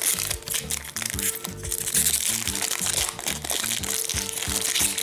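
A hockey card pack wrapper crinkling and being torn open by hand, a fast, dense crackle, over background music with a steady beat.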